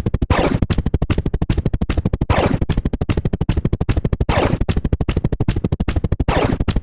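Rapid sound-effect clicks, about ten a second, one for each number counted. A short sweeping tone cuts in roughly every two seconds.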